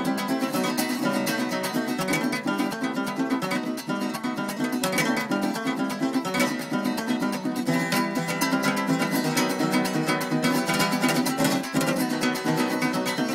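A requinto jarocho picking a quick melody over a second small guitar strummed in a steady rhythm: two small acoustic string instruments playing together without pause.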